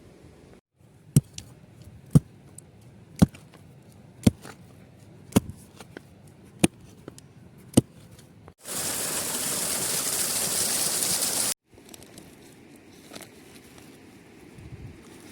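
About seven sharp chopping strokes, roughly one a second and slowing slightly, then a loud steady hiss lasting about three seconds that starts and stops abruptly.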